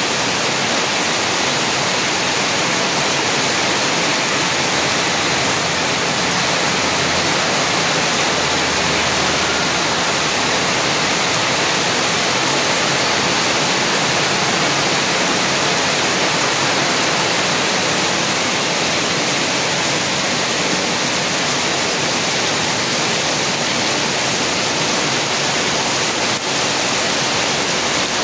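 Heavy rain pouring down, a loud, steady, even hiss.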